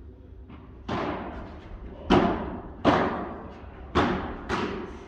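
Padel ball being hit in a rally: a serve, then sharp racket strikes and bounces about a second apart, five loud ones in all, each echoing in the hall.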